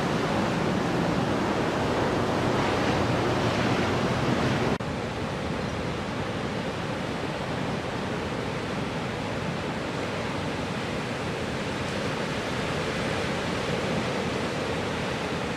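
Steady rush of ocean surf, waves breaking and washing, with a sudden drop in level about five seconds in.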